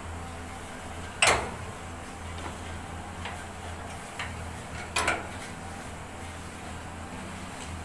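Two sharp clinks or knocks, about a second in and about five seconds in, with a few lighter ticks between them, over a steady low hum.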